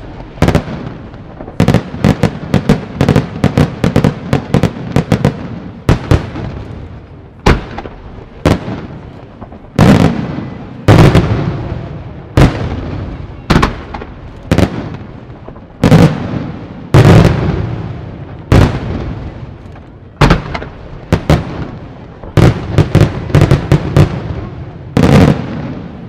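Aerial firework shells bursting in a professional display: a rapid string of sharp bangs in the first few seconds, then heavier booms every second or two, each trailing off in a rolling echo.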